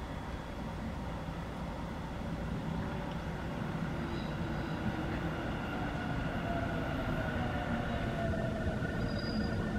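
Tobu 50000-series electric multiple-unit train running into a station and braking to a stop, its rumble slowly growing louder as it nears. About six seconds in, a faint whine falls in pitch as the train slows.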